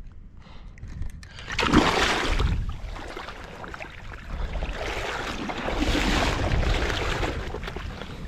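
Shallow water sloshing and splashing in two surges, about two seconds in and again from about five seconds, over wind rumbling on the microphone.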